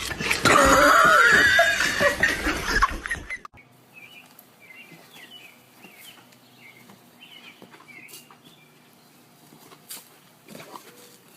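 A dog's loud, pitch-gliding vocalization for about three seconds, then an abrupt cut to faint, quick high chirps over a low hum.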